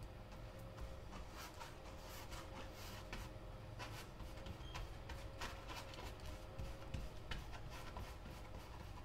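Flat paintbrush scrubbing oil paint onto a stretched canvas: quiet, irregular scratchy strokes, several a second.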